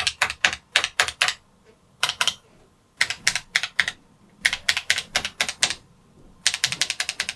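BBC Model B computer keyboard being tested key by key: rapid runs of key clicks in five bursts with short pauses between, each key struck several times in quick succession to check that its freshly cleaned switch responds.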